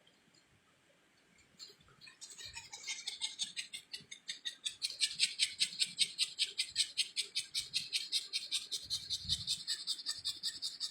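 Rapid, rhythmic scratching strokes, about four or five a second, starting about two seconds in after near silence.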